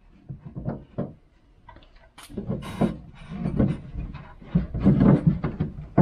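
Irregular clicks, knocks and rustling of hands working the lock and latch-rod parts inside a 2012 Nissan Rogue door cavity, with a couple of sharp snaps of plastic or metal.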